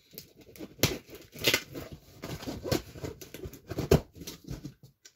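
A cardboard box being opened by hand: irregular rustling and scraping of cardboard flaps and tape, with several sharp knocks, the loudest about a second in and again near the end.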